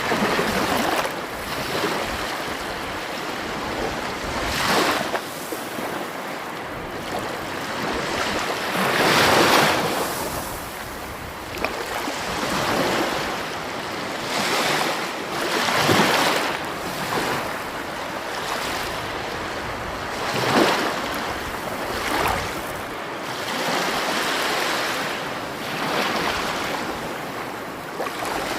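Sea waves washing in and breaking on the shore, one wave about every four to five seconds, with a steady rush of surf between them.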